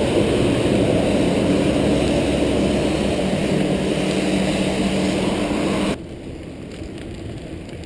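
Road traffic passing a moving bicycle, with a heavy truck's engine running by on the wet road; the noise drops abruptly about six seconds in.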